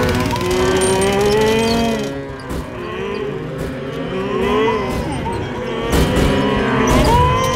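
Cartoon tractors lowing like cattle, several at once in long gliding moos, as they tip over, with a few sharp knocks from them falling and sputtering.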